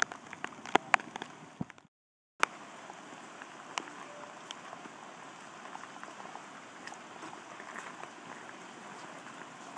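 Steady rain, an even hiss, with a few sharp taps in the first two seconds and a handful later. The sound cuts out completely for about half a second around two seconds in.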